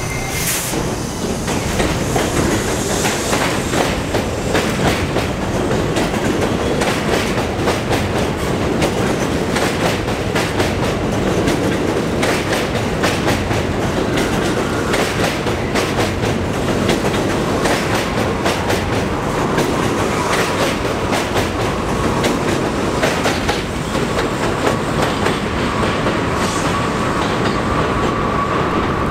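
R68 subway train pulling out of the station and running past close by, a loud steady rumble with wheels clattering rapidly over rail joints. A thin steady high tone rises out of the rumble in the last several seconds as the train draws away.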